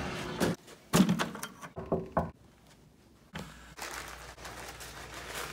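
A single sharp thump about a second in, like a door shutting, followed by a few short sounds, a brief near-quiet pause and then a steady background hiss.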